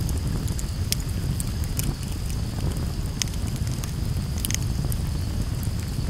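Campfire crackling, with scattered sharp pops of burning wood over a steady low rumble.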